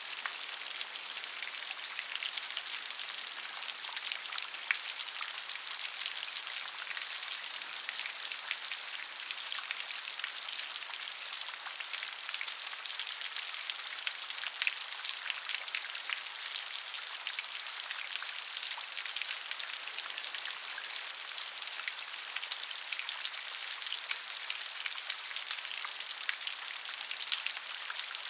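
Steady rain falling, an even hiss with many small drop ticks and no change in intensity.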